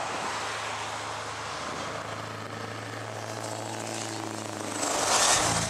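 Scania truck engine running steadily as the rig rounds a bend, then a louder rush of noise near the end as it passes close by.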